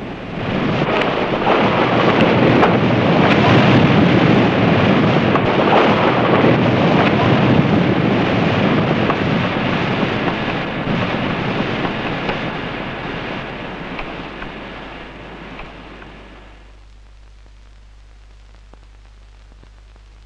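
Snow avalanche of the flowing type rushing down a mountain slope: a loud, steady rushing noise that swells within the first two seconds, then slowly fades and dies out about sixteen seconds in, leaving only a faint low hum.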